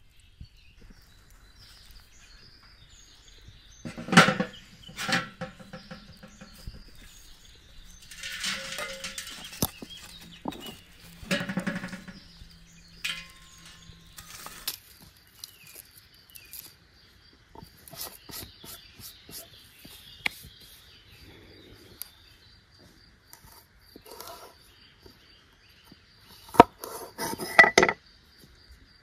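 Metal clanks and scraping as an iron sač baking dome is set over the pan and shovelled embers are heaped on it, over faint steady chirping of insects and birds. Near the end comes a quick run of sharp cracks and rustles as garlic is broken apart and peeled.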